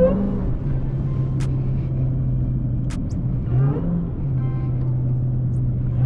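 Supercharged 6.2-litre HEMI V8 of a Dodge Hellcat Widebody heard while driving, holding a steady engine note. Its revs briefly climb and fall back right at the start and again about three and a half seconds in. Faint light clicks come about every second and a half.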